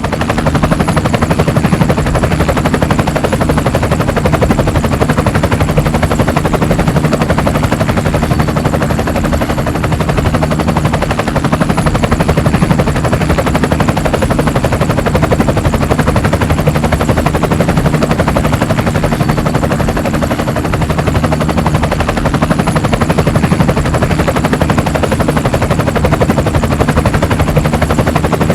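Helicopter rotor blades chopping in rapid, even beats at a steady level over a low engine drone, with a faint high whine above.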